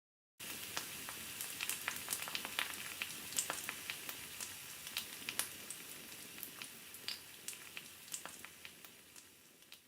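Sizzling hiss with scattered sharp crackles, like food frying in a hot pan, starting suddenly and fading out slowly toward the end.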